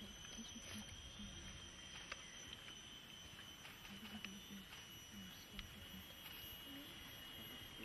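Faint forest ambience: a steady high-pitched hum with a few soft clicks scattered through it.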